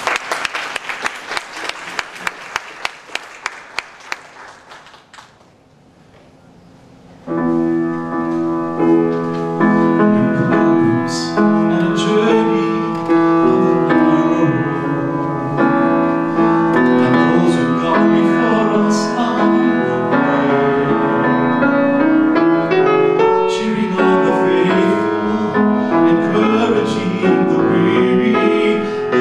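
A steady run of sharp taps fades out, a short lull follows, and about a quarter of the way in a grand piano starts playing with a man singing over it to the end.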